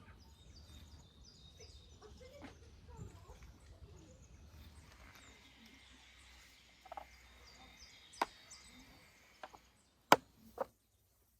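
Quiet outdoor ambience with birds chirping, then a few sharp knocks near the end before the sound cuts off suddenly.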